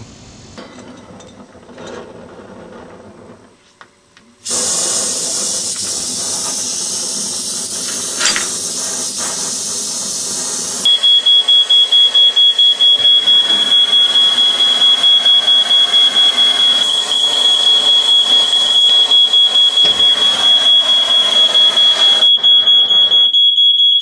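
A high-pitched electronic alarm beeping rapidly and steadily on one tone, starting about eleven seconds in. Before it comes a loud steady hiss.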